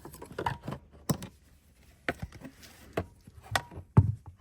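Plastic dashboard fuse box cover being pried and pulled off its clips: about half a dozen sharp plastic clicks and knocks, the loudest near the end.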